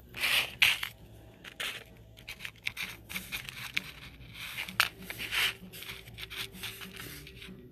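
Handling noise from a phone being moved and repositioned: irregular scrapes, rubs and soft knocks, loudest in the first second.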